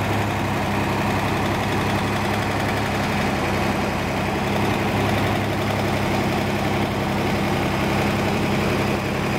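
Rebuilt Chevrolet Corvair 140 hp air-cooled flat-six idling steadily, a little fast because it is cold with the chokes on.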